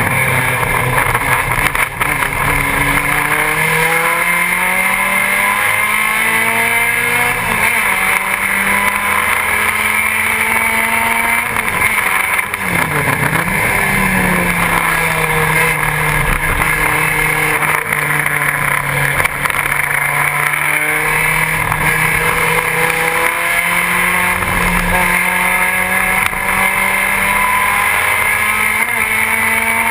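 BMW 2002 race car's inline-four engine at full throttle, heard from inside the cabin. Its pitch climbs through the gears and drops at each shift, with one sharp dip and recovery about twelve seconds in, then a long steady high-rev pull.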